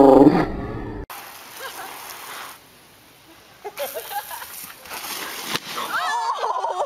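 A loud held tone cuts off just after the start. It gives way to a steady hiss of water spraying over a backyard slip-and-slide, with people calling out. Near the end comes a burst of shouting and screaming as a man slides and tumbles on the wet tarp.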